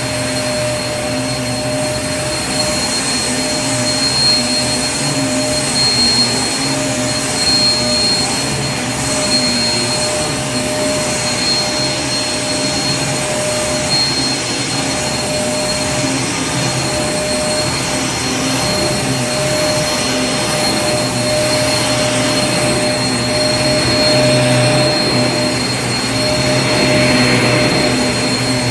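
Vacuum cleaner running steadily: a constant motor whine and rush of air.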